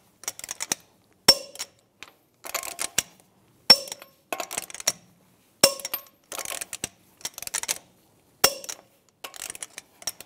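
Click-type torque wrench on the truck's 22 mm lug nuts, snapping with a sharp metallic click four times, about every two to three seconds, as each nut reaches its set torque of 140 foot-pounds. Bursts of quicker, fainter clicking come between the loud clicks.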